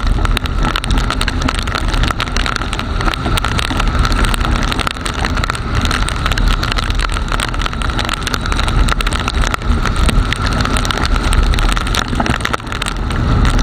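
TVS Star City motorcycle's single-cylinder engine running steadily on the move in rain, mixed with wind and road noise, picked up through an action camera's waterproof case; many small ticks run through it.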